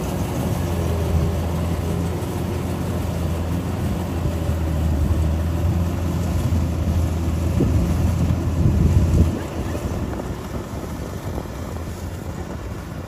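Rice combine harvester's engine running with a steady low drone. The drone drops away suddenly about nine seconds in, leaving wind buffeting the microphone.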